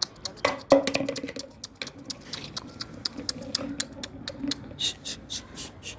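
A dog making quick, regular clicking sounds, about five a second, with a faint low tone underneath at times.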